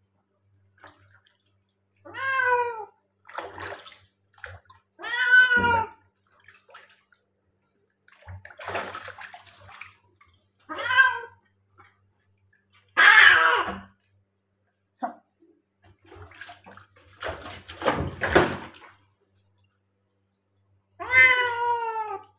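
A white cat meowing loudly in protest at being bathed, four separate drawn-out meows that fall in pitch. Between them come stretches of splashing water and the rubbing of wet fur in the sink.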